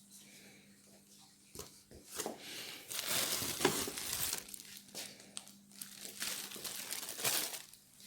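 Plastic packaging crinkling and rustling as parts are handled and unwrapped, in irregular handfuls starting about a second and a half in and loudest near the middle.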